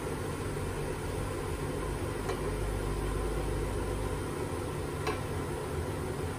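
Steady rushing rumble of water boiling in a steamer pot under a stainless steamer tray, with two light taps as a ceramic bowl is set down in the tray, about two and five seconds in.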